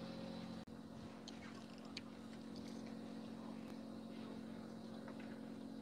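Fishing boat's motor humming steadily and faintly, with a few faint ticks in the first couple of seconds.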